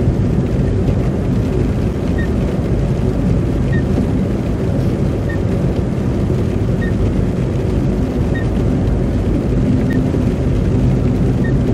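Road noise inside a moving car on a slushy winter road: a steady low rumble of tyres and engine, with a faint short tick about every second and a half.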